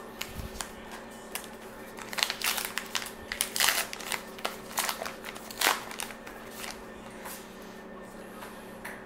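A 2019 Topps Gypsy Queen baseball card pack wrapper being torn open and crinkled by hand: a run of sharp crackles and rustles, densest from about two to six seconds in.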